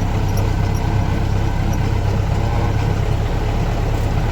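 Vehicle engine running steadily, a deep even drone with no change in pitch.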